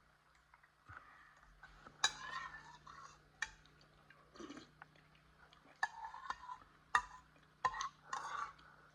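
Eating sounds: a spoon clicking against a bowl about five times, with chewing between the clicks.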